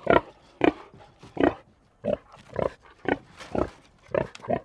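Domestic pig grunting: a steady run of short, separate grunts, about two a second.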